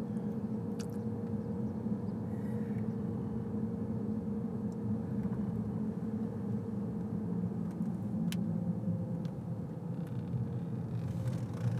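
Steady low rumble of a slowly moving vehicle, with a thin steady hum over it.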